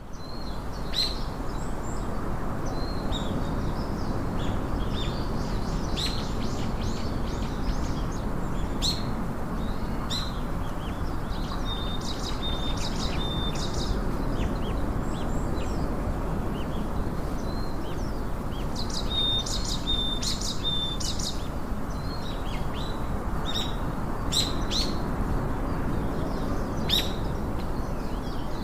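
Small birds chirping: short high chirps throughout, with two runs of quick repeated notes, over a steady low background hiss.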